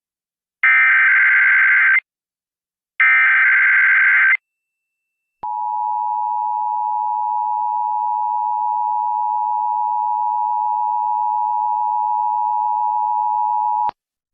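Emergency Alert System test on the radio: the last two of three SAME header data bursts, each a harsh electronic screech of about a second and a half. After a one-second pause comes the steady two-tone EAS attention signal, held for about eight and a half seconds and cut off abruptly.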